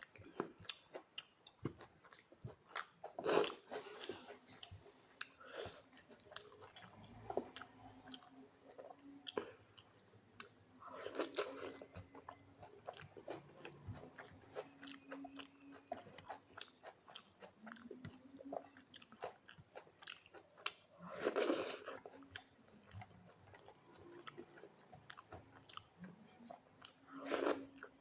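Close-up wet chewing and lip smacking of a meal of rice, greens and mashed potato, a constant run of small clicks. Every few seconds comes a louder, longer burst, about five in all.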